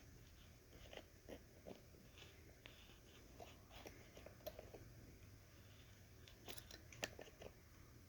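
Faint, irregular small clicks and rustles of hands pulling a tie tight around a headphone hinge, with a couple of sharper clicks in the second half.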